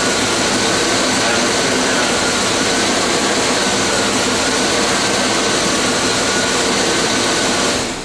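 Chevy Tahoe's 5.7 L small-block V8 idling steadily under the open hood.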